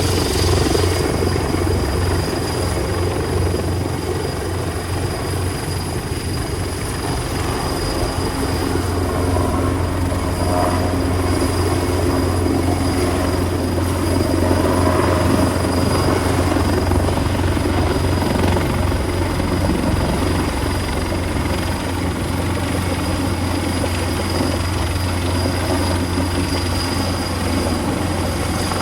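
A large engine running steadily, giving a loud, continuous low drone with a fluttering mid-range rumble.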